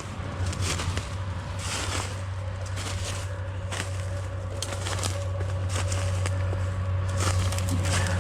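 Footsteps through brush and gravel, about one a second, over the low rumble of a road vehicle's engine growing steadily louder as it approaches.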